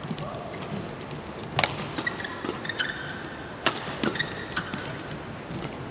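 Badminton doubles rally: sharp racket strikes on the shuttlecock, the two loudest about two seconds apart with lighter hits between, and short squeaks of court shoes between shots.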